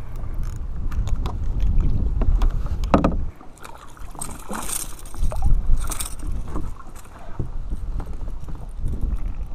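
A spinning reel is cranked as a hooked smallmouth bass is brought to the kayak, with short clicks throughout. The fish splashes at the surface about four and a half and six seconds in. Wind rumbles on the microphone for the first three seconds.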